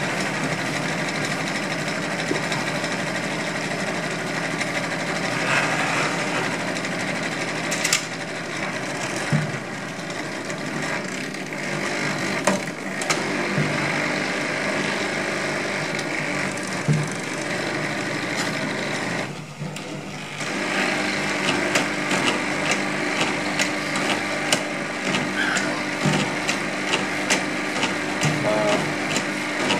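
A steady machine-like drone with several pitched lines, changing pitch slightly after about twenty seconds, under scattered sharp pops and crackles of distant aerial fireworks that grow more frequent near the end.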